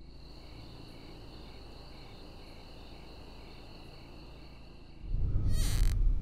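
Film soundtrack of a night scene: crickets chirping in a steady pulsing chorus over a low hum. About five seconds in, a deep rumble swells up, and a brief loud hissing hit sweeps across it.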